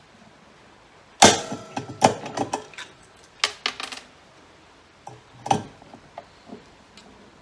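Hand rivet gun setting 4 mm aluminium pop rivets: sharp metallic clicks and snaps, the loudest about a second in as the rivet sets, with further clicks around two, three and a half, and five and a half seconds in as the tool is worked again.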